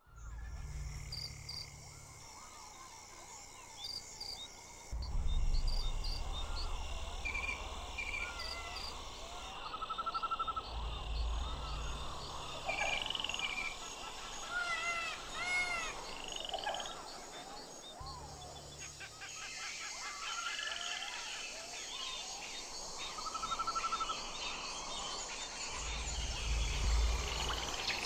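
Outdoor wildlife recording: many short chirping calls and arching cries, with a couple of short even trills, over a steady hiss. A low rumble comes and goes in patches.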